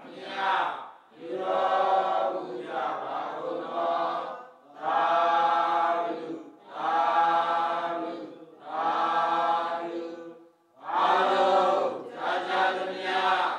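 Buddhist devotional chanting: voices in unison sing drawn-out phrases of a second or so each, with short breaks between them, as the closing responses of a sermon.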